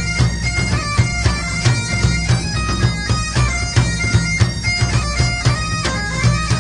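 Bagpipe music: a steady low drone held under a quick, ornamented melody.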